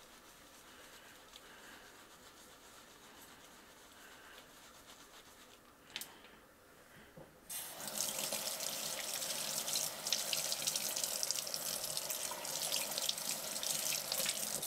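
Faint scrubbing of a makeup brush on a soapy cleaning pad, with a sharp click about six seconds in. About halfway through a kitchen faucet comes on, and water runs steadily into a stainless-steel sink as the brush is rinsed.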